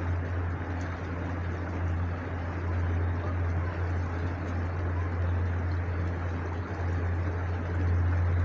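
A tour boat's motor running steadily at slow cruising speed, a constant low drone with a wash of water and engine noise over it.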